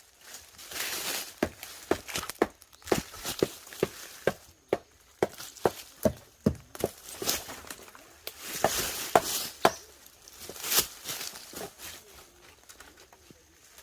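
Tools striking wood in a run of sharp knocks, roughly two a second for several seconds, then rustling and scraping with a few further knocks while work on a firewood support rack goes on.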